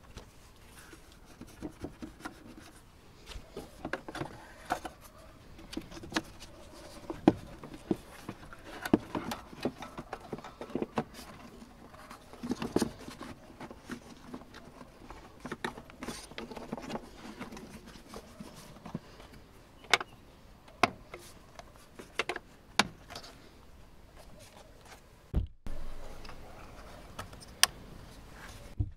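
Plastic air filter housing of a Toyota Yaris being handled and refitted by hand: rustling and scraping of plastic parts with many irregular clicks and knocks, and a few sharper isolated clicks later on.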